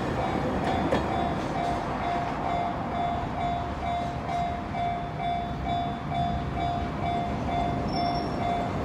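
Level crossing warning bell ringing in a steady repeated ding, about one and a half strikes a second, over the low rumble of a freight train's container wagons rolling past; the bell stops near the end.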